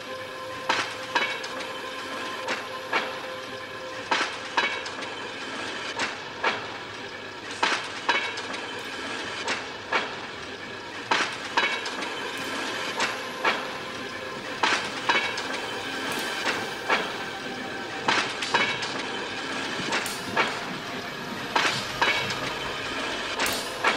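Electronically treated clack of a rail trolley's wheels crossing rail joints, coming mostly in pairs every second or two, over a steady drone of several held tones.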